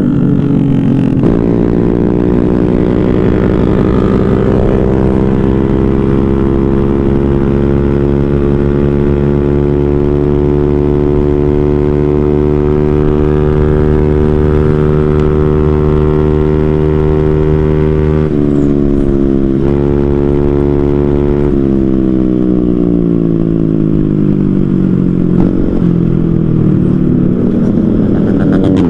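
Motorcycle engine running hard at wide-open throttle: its pitch climbs in the first couple of seconds and then holds high and steady. About 18 seconds in the sound briefly changes, and from about 21 seconds the pitch falls away, rising again near the end.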